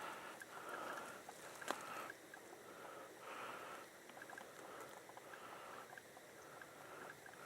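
Faint rustling in irregular patches with scattered light clicks, one sharper click a couple of seconds in.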